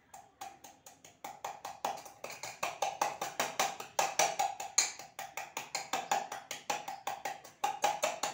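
Wooden pestle pounding chillies in a small steel tumbler: a fast, steady run of about four to five knocks a second, each one making the steel cup ring. The knocks are light at first and grow louder after about a second.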